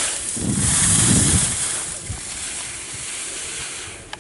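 Wind buffeting the camera microphone: a steady hiss with a loud rumbling gust about half a second to a second and a half in.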